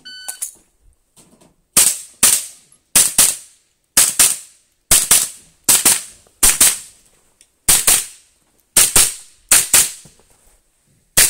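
A shot-timer start beep, then a .22 LR minirifle fired rapidly about nineteen times, mostly in quick pairs, sharp cracks as the shooter engages targets.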